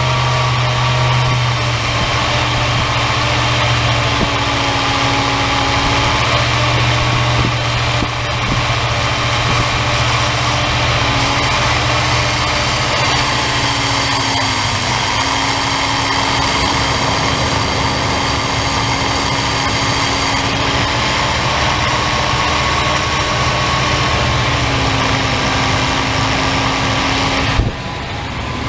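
1994 Chevy Silverado's 5.7-litre (350) V8 running at a steady fast idle of about 2,000 rpm, its throttle held open by a pedal clamp while Seafoam is sprayed into the intake. The pitch wavers slightly now and then, and the sound drops abruptly near the end.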